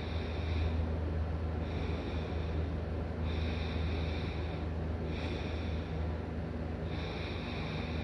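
A sleeping person snoring, the breath sounds coming and going in a steady rhythm over a constant low hum.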